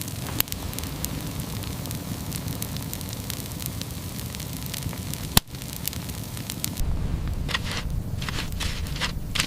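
Open wood fire crackling steadily with many small snaps, a sharp pop about half a second in and a louder snap a little past halfway. Near the end a low rumble comes in under the crackle.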